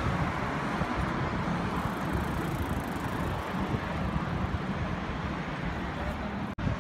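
Steady road traffic noise from a busy city street, cars passing, with a brief break near the end.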